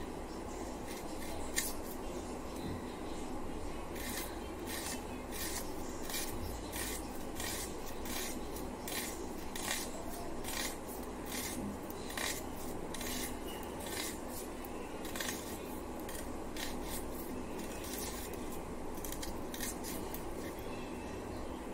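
Vegetable being cut on a boti, a curved upright kitchen blade: short rasping strokes about twice a second, sparser at first and for a few seconds past the middle.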